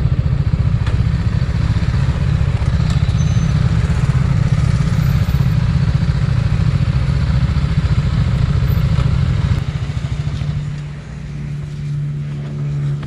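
TVS Apache RR 310's single-cylinder engine running at low speed as the bike rolls and manoeuvres. About ten seconds in it drops to a steadier, quieter idle.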